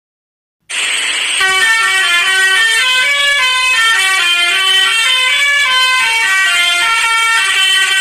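Indian truck's musical horn playing a quick tune of stepped notes, starting about a second in after a short rush of noise.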